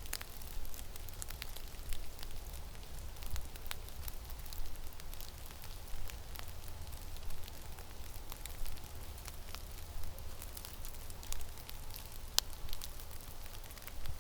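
Steady low wind rumble on the microphone in a snowstorm, with scattered irregular crackles and ticks throughout; the sharpest tick comes near the end.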